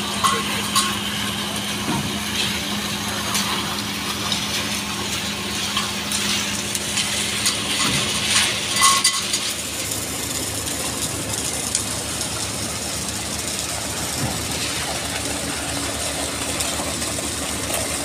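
An engine running steadily, its low hum dropping away about halfway through, with scattered clinks and scrapes of hand tools working wet concrete in the first half.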